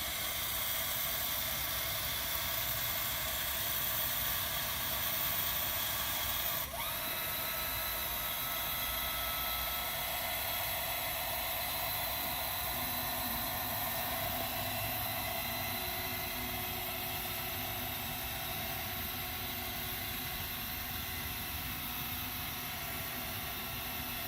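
Electric motor of a powered transfer seat base whining steadily as it turns the seat out and lowers it. About seven seconds in the motor stops briefly and starts again, its pitch rising as it picks up.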